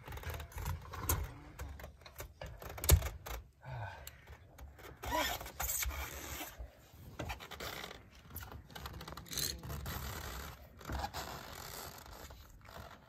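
Irregular metallic scraping, clinking and knocking as a stainless steel chimney pipe section is handled and seated on the flashing of a corrugated metal roof, with one sharp knock about three seconds in.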